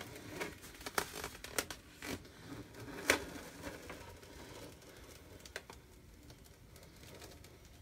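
Adhesive silkscreen transfer being peeled off a glass pane: the plastic film crinkles and crackles with short sharp clicks as it lifts away. The crackles come thickest in the first few seconds, the loudest about three seconds in, then thin out.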